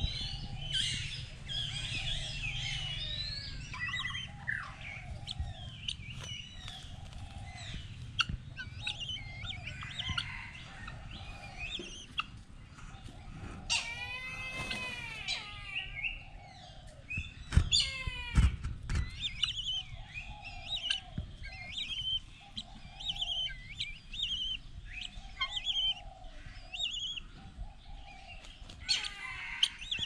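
Many birds chirping and calling together: quick high chirps throughout, a lower call repeated about once a second, and a louder call of several quick rising-and-falling notes about halfway through. A few knocks follow a few seconds later.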